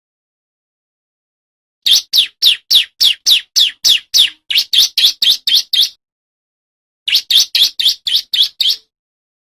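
Male bar-winged prinia (ciblek) singing: two fast runs of sharp, loud, downslurred notes at about three a second, the first beginning about two seconds in and lasting about four seconds, the second shorter, after a brief pause.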